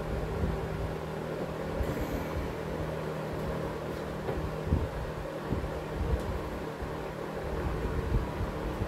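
1960s Emerson Electric 20-inch reversible box fan running on low speed: a steady motor hum under the rush of air from its blades, with uneven low buffeting of air on the microphone.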